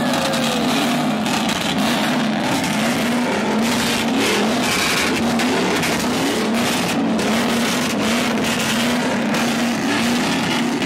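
A truck doing a burnout: engine held at high revs with loud, steady rushing noise from the spinning tyres.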